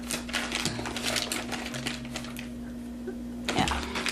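Crinkling of a small snack sample pouch being handled and squeezed: a run of quick, irregular crackles, with a louder crackle near the end.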